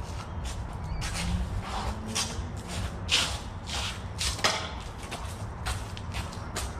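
Footwork of two people sparring: shoes scuffing and shuffling with a run of short, sharp brushing noises, the loudest about three and four and a half seconds in, over a steady low rumble of wind on the microphone.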